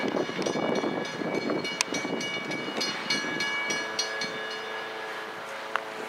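Freight cars rolling past at a level crossing, their wheels clattering over the rails, loudest in the first couple of seconds and easing off. A crossing warning bell rings steadily over it, with one sharp click about two seconds in.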